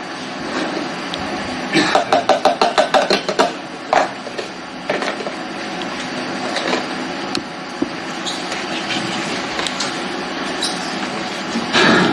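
Grated parmesan being tipped from a plastic tub into a steel Thermomix bowl: a quick run of light knocks, as the tub is tapped, about two seconds in, then scattered knocks and a louder clatter near the end, over a steady background hum.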